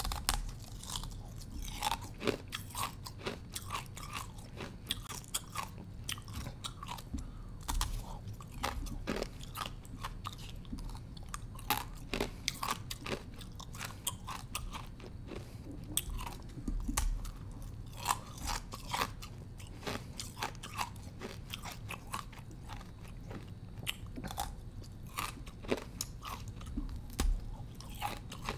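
Close-up bites into thin sheets of ice, each one cracking and crunching, followed by chewing of the ice pieces, in an irregular run of sharp crunches all through.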